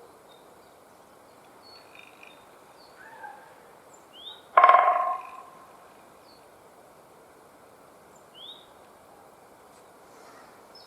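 A woodpecker drums on a dry tree: one fast roll of knocks merging into a rattle, under a second long, about halfway through, ringing off the wood. It is the bird's spring drumming signal. A couple of short rising bird chirps sound faintly around it.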